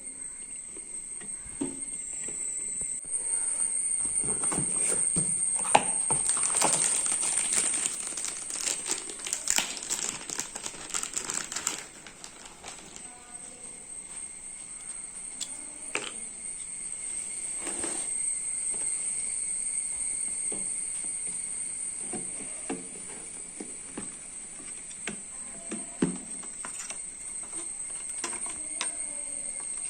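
Rustling and crinkling of packaging and small parts being handled, with scattered sharp clicks; the crinkling is densest from about four to twelve seconds in. A steady high-pitched whine runs underneath.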